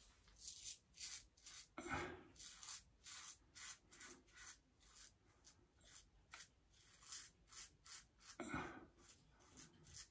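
Aluminium safety razor scraping through whiskers in a series of faint, short strokes. The loudest strokes come about two seconds in and again near the end.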